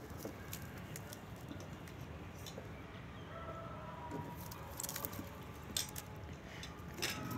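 Scattered light scratches, rustles and sharp little clicks of a cat and her kitten wrestling in a cloth-lined wicker basket, over a faint low background noise.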